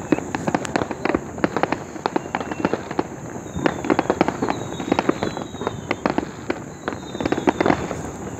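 Fireworks going off all around: a dense, continuous run of sharp cracks and pops, several a second, with a few faint falling whistles now and then.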